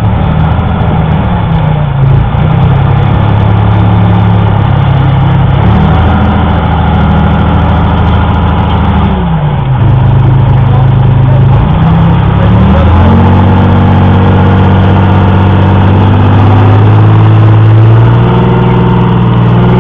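Tracked armoured vehicle's engine running hard, its speed dropping and picking up again several times, then held higher through the second half.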